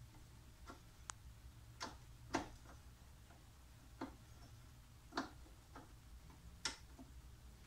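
Faint, sharp single clicks from a socket ratchet, coming unevenly about once or twice a second, as it is worked in short swings on a stiff bolt that has not turned in a long time.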